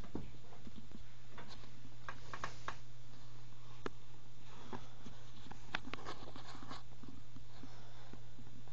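Steady low hum of running aquarium equipment, such as an air pump or filter, with scattered light clicks and taps about two seconds in and again between four and seven seconds.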